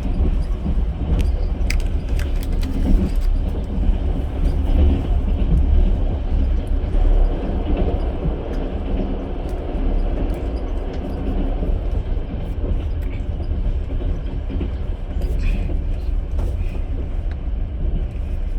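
Steady low rumble of a long-distance passenger train's carriage rolling along the track, heard from inside the car, with scattered short clicks and knocks from the wheels.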